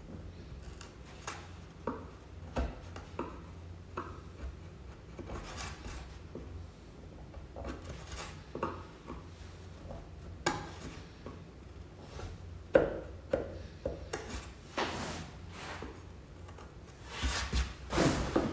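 Hand tool scraping dried glue off the wooden edge of an old door: irregular scraping strokes with occasional knocks on the wood, the loudest strokes about two-thirds of the way in and near the end.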